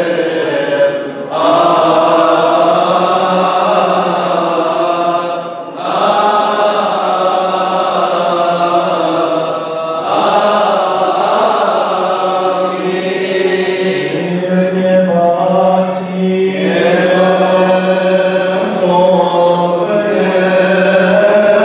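Coptic liturgical chant: long, wavering sung phrases with short breaks between them, over a steady low held note.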